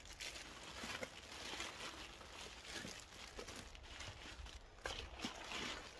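Faint crinkling of plastic wrapping as parts are pulled out of a small cardboard box, with a few small clicks.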